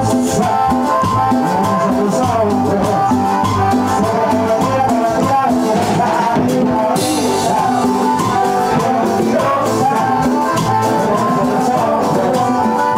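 Live band playing Latin dance music: congas, electric bass, drum kit and keyboard over a steady percussion beat, with a singer on the microphone near the end.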